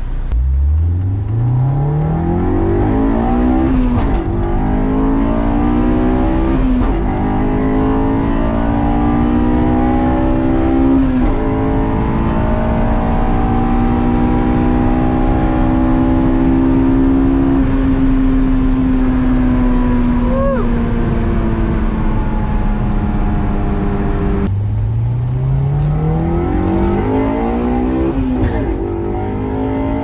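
Honda S2000's four-cylinder VTEC engine through a Berk high-flow catalytic converter, heard from inside the cabin at wide-open throttle: revs climb, drop and climb again at three upshifts, then hold high and ease slightly. After a sudden cut, a stock S2000 recorded from the cabin starts another rising acceleration with a gear change.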